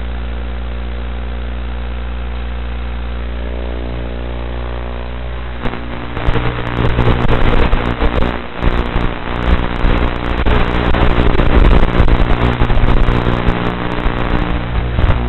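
Brushless motors and propellers of a 3D-printed 130-size FPV mini quad: a steady hum while it sits armed on the grass, then, about six seconds in, a much louder, rough rush that surges up and down with the throttle as it takes off and flies low.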